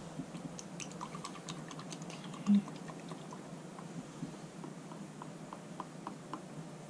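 Paintbrush tapping and dabbing in a metal palette box while mixing paint: light, irregular ticks and taps. One brief low sound stands out about two and a half seconds in.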